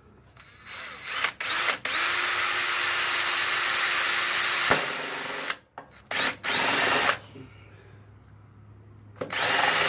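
Cordless drill boring holes through a plastic deflector plate: a couple of short trigger bursts, then a steady whining run of about three seconds that winds down, two more short bursts and a brief run, a pause of about two seconds, and the drill starting again near the end.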